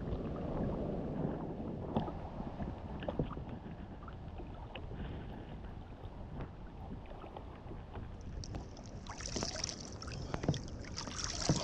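Wind and sea water moving around a fishing kayak, with scattered light knocks. About eight seconds in, a hissing splash of water starts and grows as the hooked jack is brought alongside the kayak.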